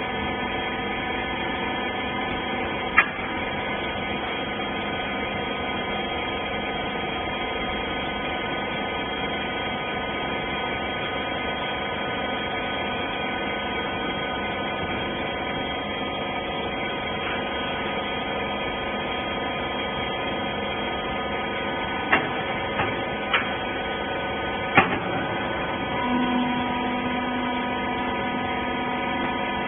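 Steady hum of a rag baler's hydraulic power unit running, with a few sharp clicks or knocks, one early and a short cluster of them later. A second steady tone joins near the end.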